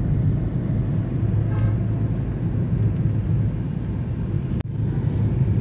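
Steady low rumble of a road vehicle on the move. A faint voice is heard briefly about one and a half seconds in, and the sound drops out for a moment near the end.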